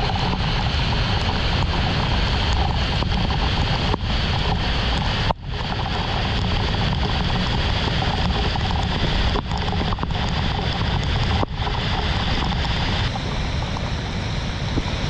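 Tropical-storm wind and heavy rain, with the wind buffeting the microphone as a dense, steady noise. The noise breaks off for a split second a few times.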